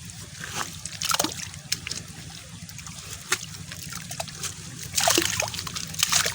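Shallow water splashing and trickling as hands grope for fish in a pool, in irregular bursts: a louder splash about a second in and a cluster of splashes near the end.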